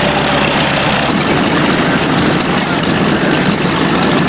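North American T-6 Texan's Pratt & Whitney R-1340 Wasp radial engine idling steadily on the ground.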